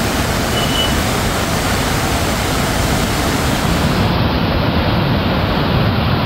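Loud, steady rush of a muddy river in flood, fast water churning without a break.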